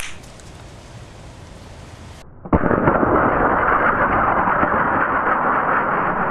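A loud, steady rush of pressurized air starts suddenly about two and a half seconds in and runs for about four seconds before fading.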